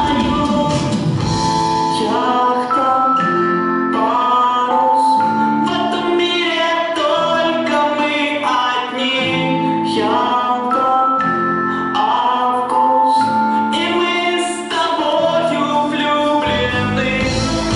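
A song sung over instrumental accompaniment, the voice holding notes that step from one pitch to the next.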